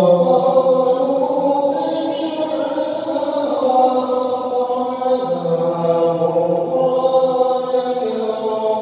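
A young man's unaccompanied devotional chanting into a microphone, one voice holding long, ornamented notes that glide slowly between pitches.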